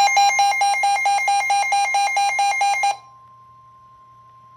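Emergency weather alert alarm beeping rapidly, about seven shrill electronic beeps a second, that stops abruptly about three seconds in, leaving a faint steady tone.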